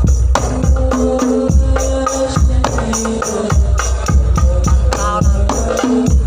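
Music: tambourine and drums keeping a steady, quick beat under a held melody line that steps between notes.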